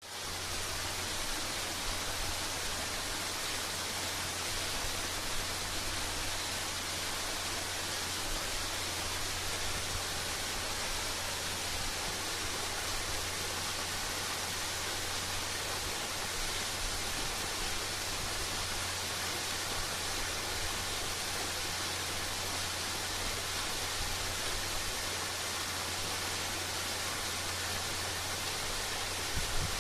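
Waterfall pouring, a steady even rush of falling water with a low rumble beneath it.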